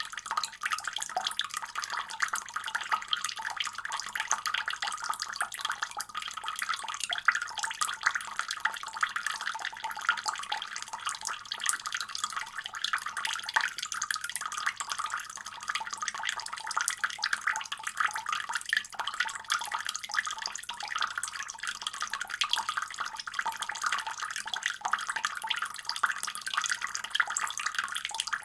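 Water running steadily from a faucet, an even, unbroken splashing rush.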